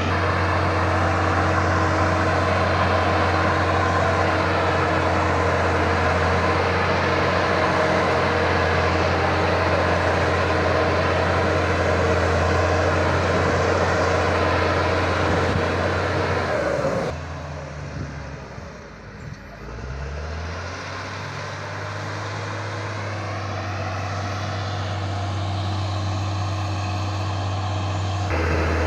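Cat D6G bulldozer's diesel engine running steadily with a deep hum. About seventeen seconds in the sound drops off abruptly, the engine pitch sags and then climbs back as it picks up again, and near the end it jumps back to the full steady sound.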